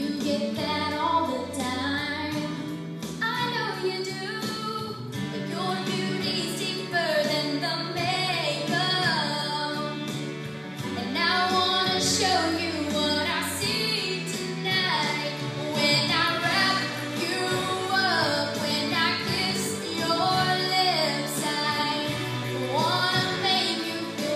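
A female vocalist singing a song over a backing track during a sound check, the sung melody carried over steady held accompaniment.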